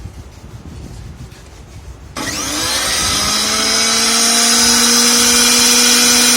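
Waring commercial blender motor switched on about two seconds in, whining up to speed within a second and then running steadily at a high pitch. Before it, faint rubbing and handling sounds.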